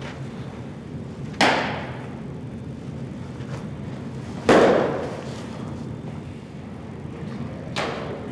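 Three sharp pops of a baseball smacking into leather gloves, each with a short echo off the indoor hall; the loudest, about halfway, is a pitch hitting the catcher's mitt.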